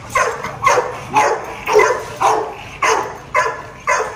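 A dog barking in a steady series of about eight short, loud barks, roughly two a second.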